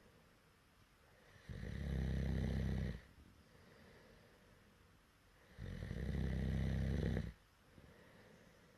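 A person snoring loudly: two long, low snores about four seconds apart, each lasting about a second and a half, with quiet breathing between.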